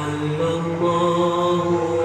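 Background music: a voice chanting a mantra in long held notes that step between a few pitches.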